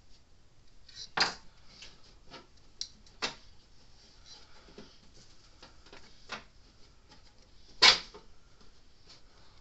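Sharp taps and knocks of a circuit board and soldering iron being handled on a workbench during soldering: three louder ones, about a second in, after about three seconds and near the end, the last the loudest, with lighter ticks between.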